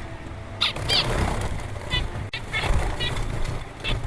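Parrot calling in a series of short, high, chattering calls, about five or six in quick succession, over a low background rumble.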